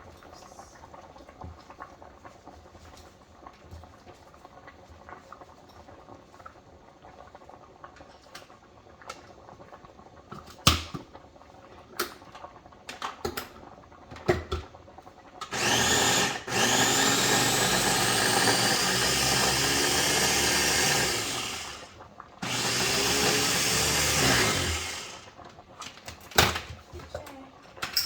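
Electric blender running in two bursts, about five seconds then about three, chopping fresh basil leaves; the motor whine rises as it spins up. Before it, a few sharp knocks and clatter from handling the blender.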